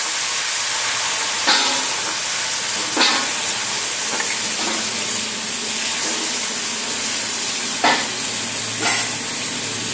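Onions and sauce sizzling in hot oil in a kadai, a steady hiss, with four short strokes of a steel spatula against the pan as it is stirred.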